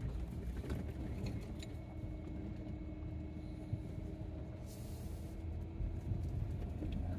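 Minivan driving along a dirt road, heard from inside the cabin: a steady low rumble of engine and tyres. A few light rattles come in the first two seconds, and there is a brief hiss about five seconds in.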